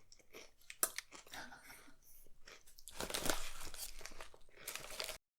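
Crunching and chewing on crunchy snacks close to the microphone: a few sharp crisp bites, then a denser run of crunching near the end before the sound cuts off.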